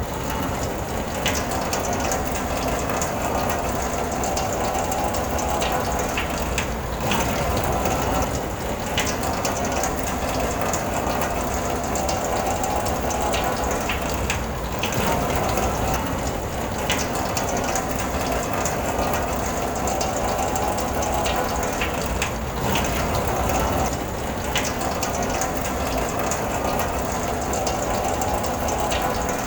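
Rain drumming on a car's roof and windows, heard from inside the car: a dense, steady patter of countless small drop hits.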